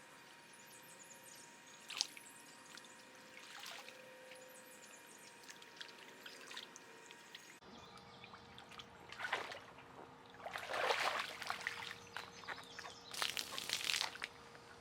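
River water splashing and trickling into a water container as it is filled, in several noisy bursts in the second half, with a single sharp click about two seconds in.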